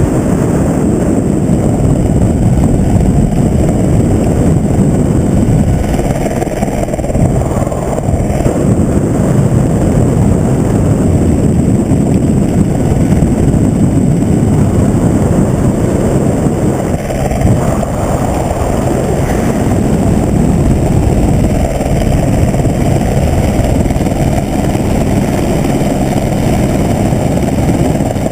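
Helicopter running: loud, steady rotor and engine noise.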